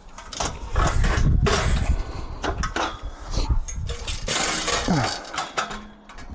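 Metal bed frame clanking and rattling as it is handled and loaded as scrap: a string of irregular metal knocks and clatters, with a short falling squeak about five seconds in.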